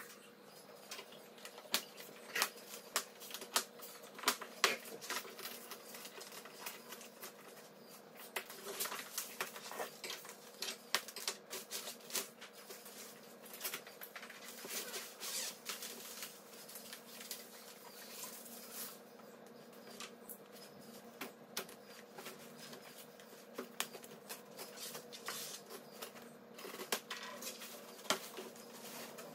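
Long cardboard shipping boxes being unpacked by hand: an irregular run of clicks, taps and scrapes as plastic strapping is cut and the cardboard and tools are handled, over a faint steady hum.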